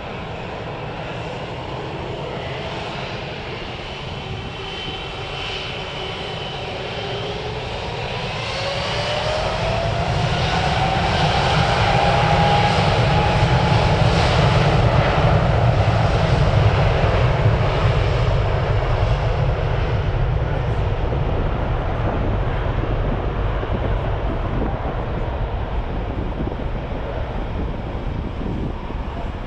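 Boeing 777 twin-engine jet airliner spooling up to take-off thrust, a whine rising in pitch over the first dozen seconds. A heavy low rumble follows as it accelerates down the runway past the listener, loudest about halfway through, then slowly fading as it rolls away.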